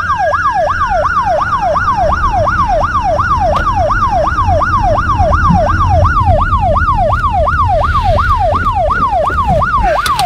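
Police siren in a fast yelp, sweeping up and down about three to four times a second, over the low rumble of a moving car. Near the start a second, slower wail rises and falls away.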